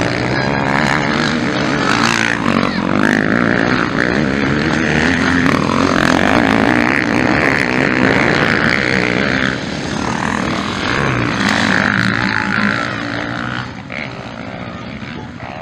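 Motocross bikes revving hard through a dirt-track corner, engine pitch rising and falling with the throttle. The engines are loudest for most of the middle, with a short dip, and fall away near the end.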